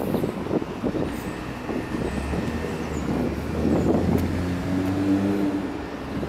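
Wind rumbling on the microphone, with a low steady vehicle hum that comes in about two seconds in and holds to the end.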